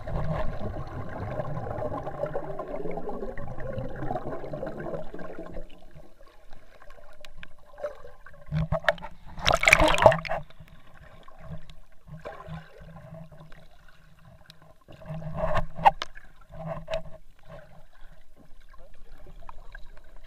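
Sea water sloshing and gurgling, muffled as heard by a camera held underwater, with a loud splash about ten seconds in and a smaller one about five seconds later.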